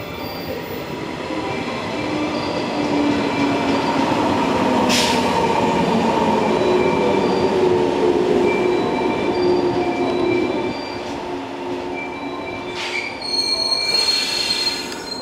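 JR West 115-series electric multiple unit pulling into a station and slowing to a stop, its wheels rumbling loudest as the cars pass, with a traction-motor whine falling in pitch as it decelerates. Brakes squeal, and a burst of hiss near the end comes as the train stops.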